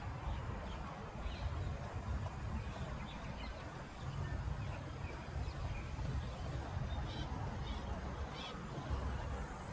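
Outdoor park ambience: a steady low rumble with scattered short, high bird chirps, a few more near the end.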